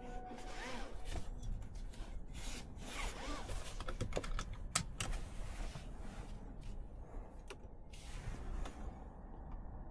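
Irregular clicks and short rustles, like things being handled or buttons pressed, thinning out near the end.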